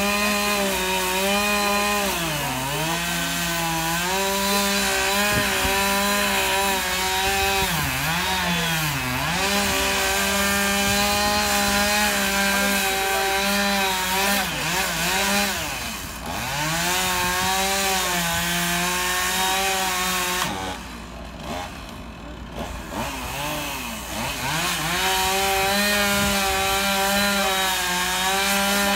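Chainsaw cutting through heavy timber bridge runners. The engine runs at high revs and its pitch dips again and again as the chain bogs down in the wood. About two-thirds of the way in it eases off for a few seconds, then revs back up.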